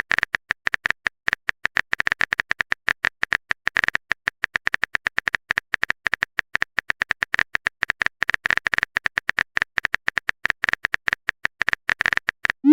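Phone keyboard typing sound effect: rapid, irregular clicks, several a second, as a text message is typed out. It ends with a short rising blip.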